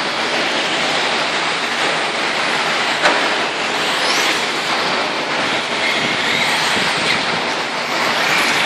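Radio-controlled short-course trucks running on an indoor dirt track: a steady wash of tyre and drivetrain noise with faint motor whines, one rising about four seconds in, and a sharp click about three seconds in.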